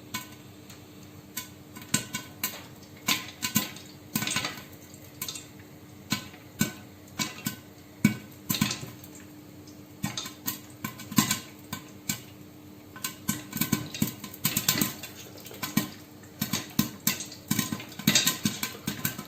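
Popcorn kernels popping in a covered pot of hot oil: sharp, irregular pops, sparse at first and coming thicker toward the end as the popping gets going.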